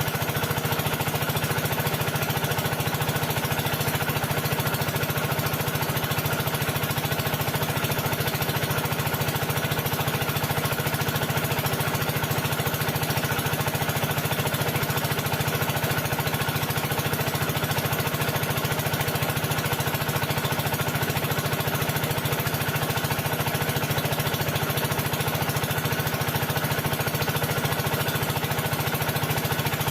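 An engine or motor running steadily with a fast, even pulse, unchanging throughout.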